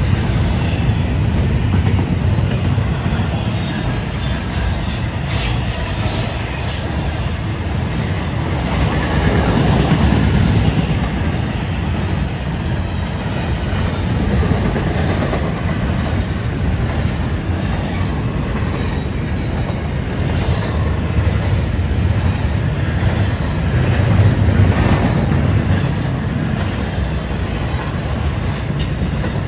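Florida East Coast freight train's intermodal cars rolling past close by: a steady rumble of steel wheels on rail with clicking over the rail joints and some high wheel squeal about five seconds in.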